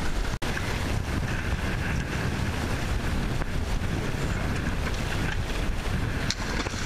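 Wind buffeting the microphone over water rushing along the hull of a ngalawa outrigger sailing canoe under way. The sound is a steady, rumbling rush with a brief dropout about half a second in.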